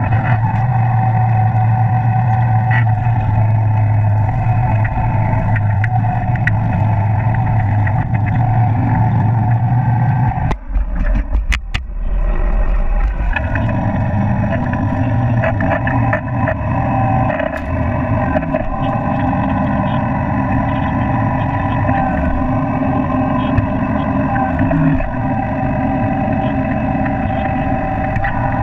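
Engine of farm machinery running steadily, with a brief drop in level and a sharp click about ten to twelve seconds in.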